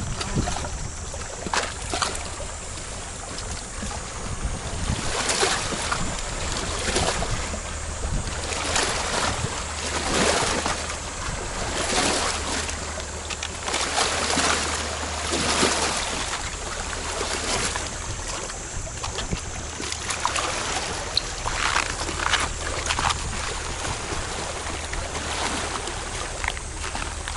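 Seawater sloshing and lapping around the shore with irregular splashes, and wind buffeting the microphone, over a faint steady low hum.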